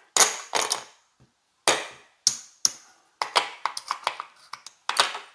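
Casino chips clacking together as they are picked up, shuffled and stacked by hand: a run of sharp, bright clicks, some in quick pairs, a few in a quicker flurry past the middle.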